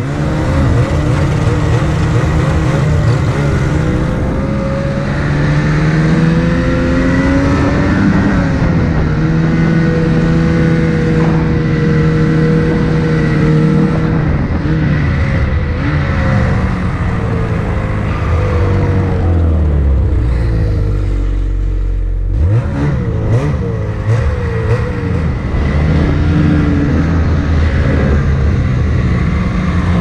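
2020 Lynx Boondocker snowmobile's two-stroke engine revving up and down as the sled rides through snow, its pitch rising and falling with the throttle. It eases off about two-thirds of the way through, then revs up again.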